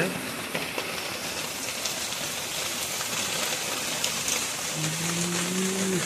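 Heavy rain falling steadily, an even hiss of drops on leaves and tiled roofs.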